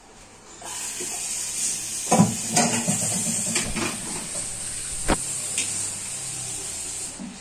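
A steady hiss that starts about a second in, with several short knocks and thumps over it.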